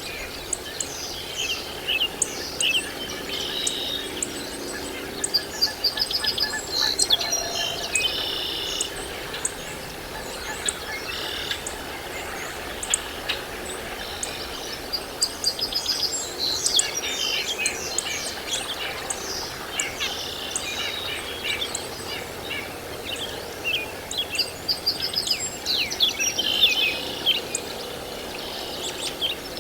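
Birds chirping and twittering: many short, high, quick calls tumbling over one another, over a steady outdoor hiss.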